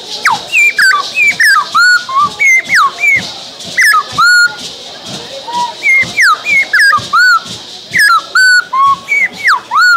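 Pataxó bird-call whistle blown to imitate the song of the sabiá thrush: a quick run of short, sliding whistled notes, some falling and some rising, in phrases with a brief lull about halfway.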